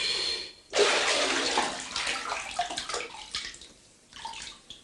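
A man plunging under bathwater in a tub: a sudden splash about a second in, then water sloshing and gurgling, dying away with a few last small splashes near the end.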